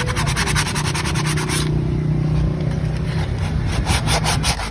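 Rapid back-and-forth scraping strokes, about eight a second, over a steady low hum. The strokes thin out after about a second and a half and return more sparsely near the end.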